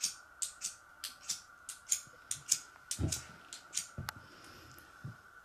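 Flint and steel struck again and again over a tinder bundle: short, sharp, high scraping strikes about three a second, stopping about four seconds in. A few dull knocks come in the second half.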